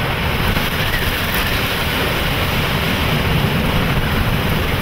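Strong wind and rain from a tornado-producing storm buffeting a vehicle, heard from inside the car as a steady noise over a deep rumble.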